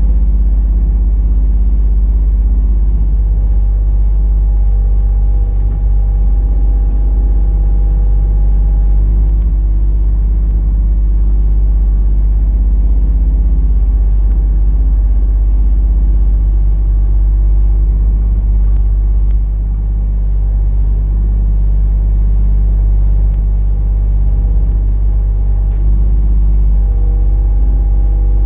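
Mini excavator engine running steadily under work, with a heavy low rumble; its note shifts slightly a few times.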